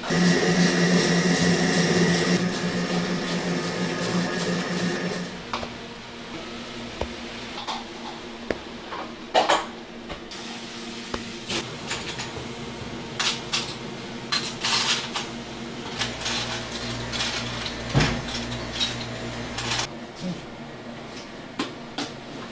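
A loud, steady electric motor hum for about the first five seconds, then a metal palette knife spreading whipped cream on sponge cake layers, with scattered scrapes and sharp clinks of the knife against the stainless steel worktop.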